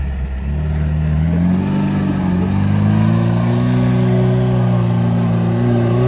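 Off-road 4x4's engine revving: the pitch climbs over the first couple of seconds, then holds steady at high revs.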